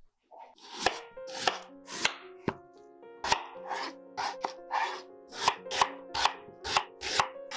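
Kitchen knife chopping peeled raw potatoes on a wooden cutting board, sharp knocks about every half second, over soft background music.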